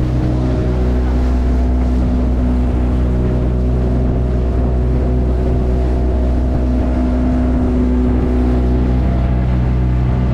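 Boat's outboard motor running steadily at a constant speed: a low, even engine note with no changes in pitch or level.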